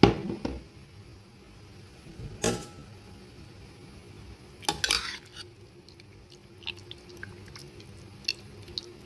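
A spoon stirring chunks of pork in soy-sauce liquid in a metal pot, knocking against the pot. There is a sharp knock at the start, another about two and a half seconds in, a short cluster of clinks about five seconds in, then a few light ticks.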